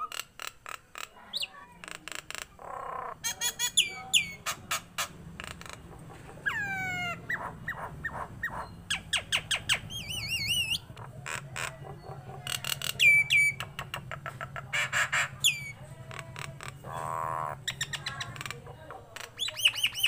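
Caged common myna (jalak Nias) singing a varied run of clicks, harsh squawks, sharp whistles and sliding notes that rise and fall, with a wavering whistle about halfway through.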